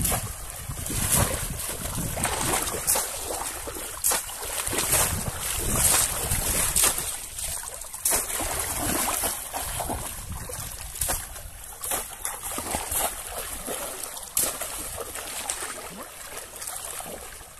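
Pond water splashing as legs wade through it and a bamboo polo fish trap is repeatedly plunged in, with sudden splashes roughly once a second over a steady wash of churned water.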